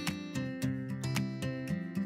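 Instrumental intro music with a steady beat and no voice over it.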